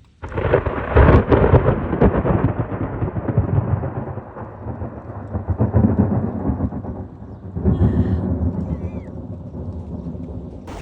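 Thunder: a sudden loud clap just after the start, followed by a long rolling rumble that swells and fades in several waves.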